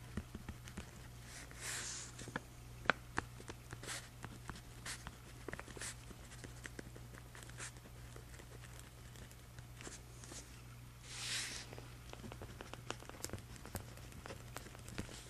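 Pen writing on journal paper: a run of short scratchy strokes and light taps, with two longer scratching strokes about two seconds in and about eleven seconds in. A faint low hum sits underneath.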